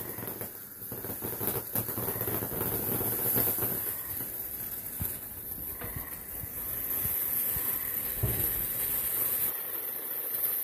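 Ground fountain firework burning: a steady spraying hiss with many small crackles and pops.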